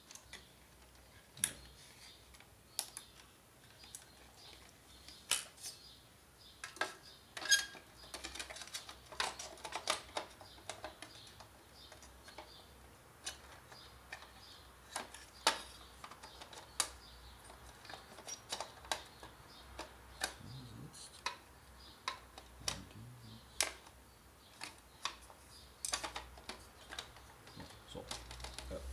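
Irregular small clicks and taps of plastic parts and wire connectors being handled and fitted inside an opened Panasonic PT-AE700E projector.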